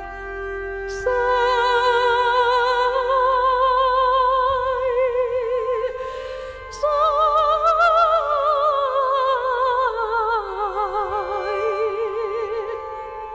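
Female voice improvising a song over a steady bazantar drone, sung with wide vibrato in two long held phrases. The second phrase climbs, then slides down.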